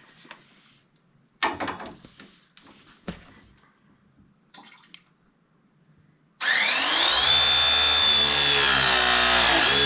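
A few light knocks and handling clatter, then a small electric power tool's motor spins up with a quickly rising whine, runs steadily at speed for about three seconds and starts to wind down at the end.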